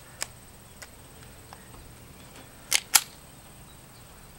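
Gas-powered KWA Scorpion airsoft submachine gun: a few faint clicks, then two sharp clacks in quick succession a little under three seconds in.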